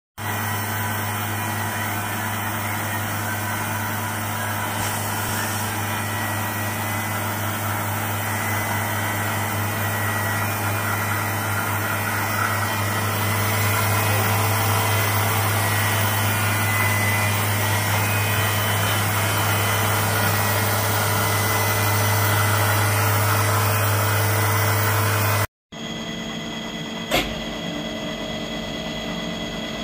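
1985 Okuma MC-4VA CNC vertical machining center running under power, a steady machine hum with a strong low drone. About 25 seconds in the sound cuts off and comes back quieter, with a single sharp click a little later.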